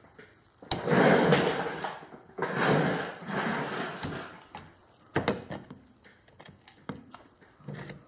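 Hand wheel of a Hardinge Sjogren collet chuck being turned by hand over its greased gears, metal and rubber scraping and rattling in two spells, about a second and then about two seconds long, followed by a few light clicks.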